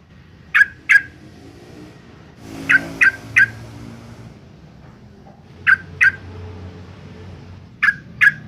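Yellow-vented bulbul giving short, sharp call notes in quick groups: two, then three, then two and two, a couple of seconds apart.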